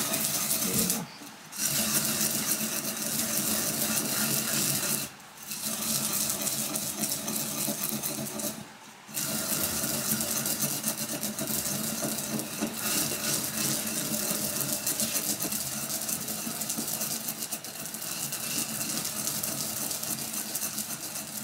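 Sesame seeds being worked in a cooking vessel: a continuous gritty scraping and rattling, broken by three brief pauses in the first nine seconds or so.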